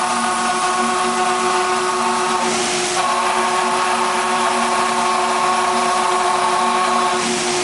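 CNC router machining: a steady spindle whine with several held tones over a cutting hiss, the tones shifting slightly about three seconds in.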